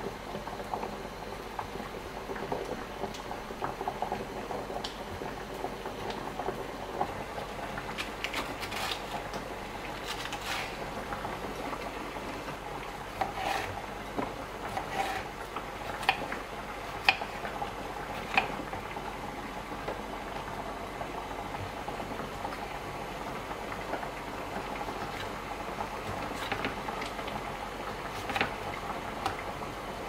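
Kitchen knife cutting vegetables on a bamboo cutting board: scattered sharp taps of the blade hitting the board, several between about eight and nineteen seconds in and a couple more near the end, over a steady low hiss.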